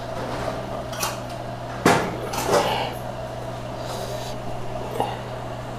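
Metal cookware and utensils clanking a few times, with the sharpest knock about two seconds in, over a steady low hum.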